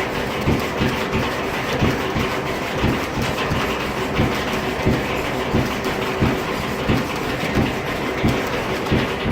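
Antique 1870s-era sawmill machinery running, with a regular, slightly uneven knock about twice a second over a steady hum.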